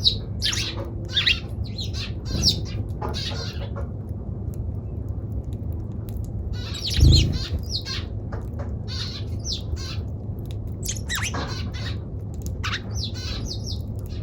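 Eurasian tree sparrow chirping and squawking in short bursts of varied calls, pausing for about two seconds in the first half, with a dull low thump about seven seconds in over a steady low hum.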